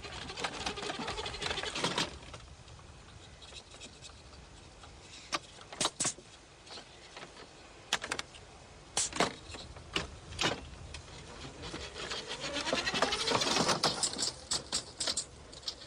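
Radio-controlled model car's small electric motor and steering servos whirring in short bursts, with scattered sharp clicks; the whirring swells and wavers for a couple of seconds near the end.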